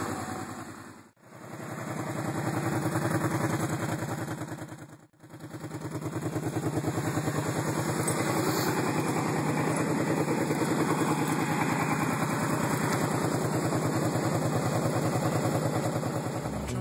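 Kawasaki Brute Force 750i ATV's V-twin engine idling steadily with an even exhaust pulse. The sound drops out briefly twice, about a second in and about five seconds in.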